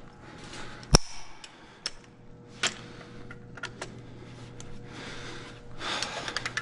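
Long torque wrench gives one sharp, loud click about a second in as a main bearing cap bolt on a Detroit Diesel Series 60 block reaches its set torque. A few lighter clicks and taps follow, with a rustle near the end.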